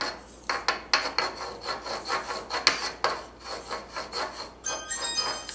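Chalk scraping on a chalkboard in quick, repeated scribbling strokes, several a second, with a brief high squeak near the end.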